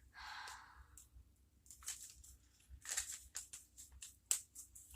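Faint rustling and crackling of a plastic bag being handled: a short rustle at the start, then a run of brief crackles and clicks in the second half.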